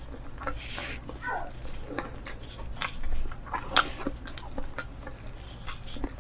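Close-up chewing of a mouthful of fried chicken, with scattered short, sharp mouth clicks.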